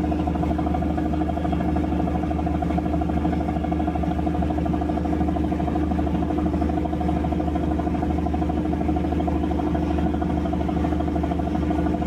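Fishing trawler's engine and deck machinery running in a steady, even drone as the winch hoists the net's fish-filled cod-end aboard.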